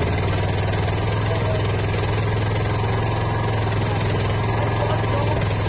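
1976 John Deere 300 lawn tractor's engine running steadily, an engine the owner says runs rough.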